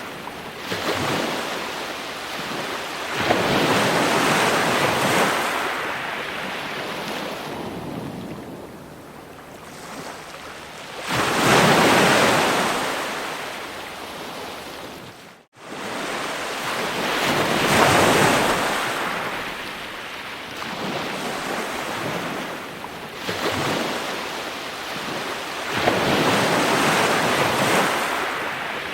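Ocean waves breaking on a shore, each wash swelling up and falling away every few seconds. There is a brief drop to silence about halfway through.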